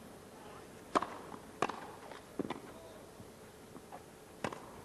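Tennis balls struck by rackets in a grass-court rally: a serve about a second in, then a quick return and further shots, about four sharp hits in all with a quiet crowd between them.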